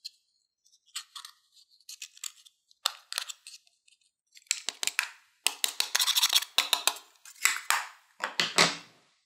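A small metal tool scraping and breaking up pressed powder blush in its plastic compact: dry, crunchy scratching in short bursts, sparse at first and busier and louder from about halfway through.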